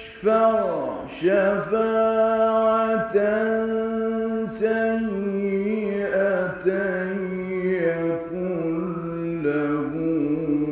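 A male Quran reciter chanting in the melodic mujawwad style: one voice holding long ornamented notes with glides between them, resuming after a brief pause at the start and stepping down in pitch toward the end.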